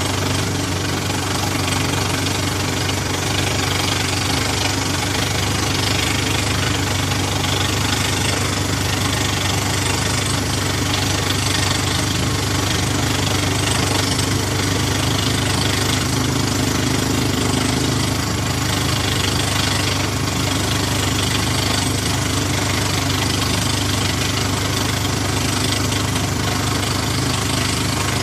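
Hydraulic down-the-hole drill rig at work: its engine runs steadily under the fast, continuous hammering of the drill, without letup.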